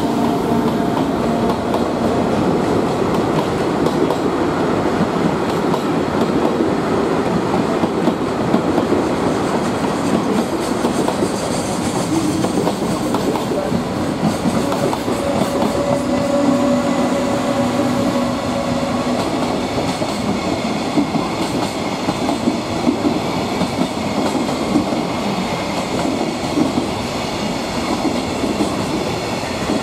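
JR Freight container wagons rolling past on their flat cars, wheels clicking steadily over the rail joints. About midway, a second container train hauled by an EF210 electric locomotive comes by on the adjoining track, adding a faint steady hum.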